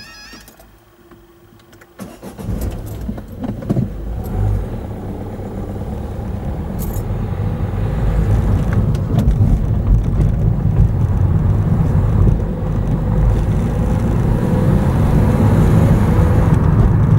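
A level crossing's warbling alarm cuts off just after the start. About two seconds in, a car pulls away, heard from inside the cabin, and drives on, getting steadily louder as it gathers speed.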